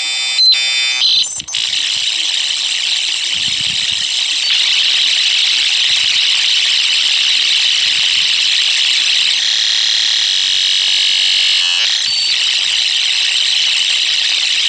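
Dial-up modem handshake: a chord of many steady tones for about a second and a half, then a steady, loud hiss as the two modems train and negotiate the connection.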